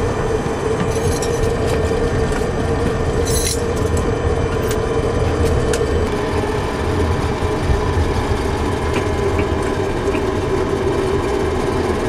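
Cockpit noise of a Tupolev Tu-154B-2 taxiing: a steady drone from its three Kuznetsov NK-8-2U turbofans at low taxi thrust, over the rumble of the undercarriage rolling on the taxiway. A couple of short clicks come through about a second and three and a half seconds in.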